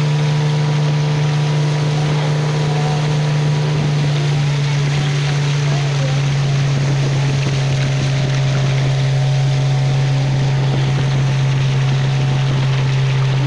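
A small river boat's engine running steadily at a constant speed, with water and wind noise rushing past.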